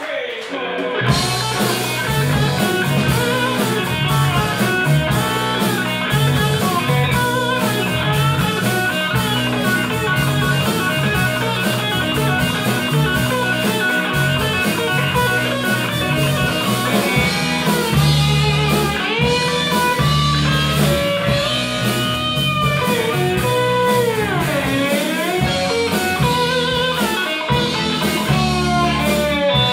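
Live blues-funk band playing an instrumental passage: electric slide guitar over electric bass, drum kit and keyboards. The full band comes in about a second in, and about three quarters of the way through one long gliding note dips in pitch and rises again.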